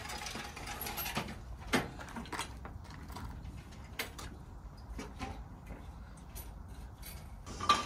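Semi-trailer landing gear being cranked up by hand: the crank handle and gear legs give scattered, irregular clicks and clanks over a low, steady background rumble.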